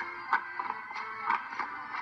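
Dance music with held tones and a steady beat, marked by sharp, regular clacks, the loudest about once a second.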